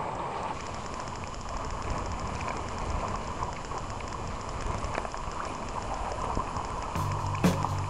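Steady rush of wind and splashing water from a kayak moving through choppy water. Music with a steady beat comes in near the end.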